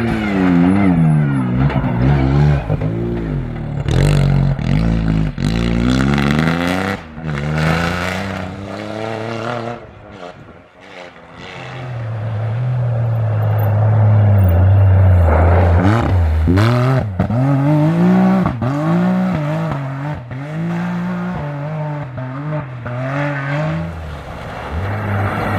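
Rally-raid cars at full throttle, engines revving up and dropping back with each gear change. The engine sound fades about ten seconds in, then another car comes in loud and revs through its gears again.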